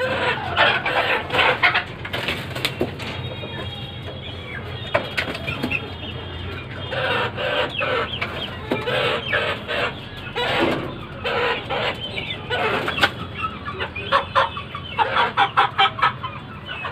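Aseel chickens clucking in scattered bursts, with a quick run of short clucks near the end.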